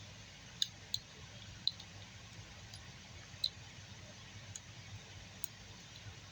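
Scattered small metal clicks of a handcuff hook pick being worked in the keyway of acrylic handcuffs, a few sharp ones in the first half and fainter ones later. The cuff is double locked, so the hook does not open it.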